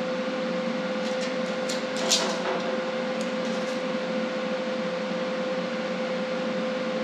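Steady machine hum holding one constant tone, with a few light clicks and taps between about one and four seconds in, the sharpest about two seconds in.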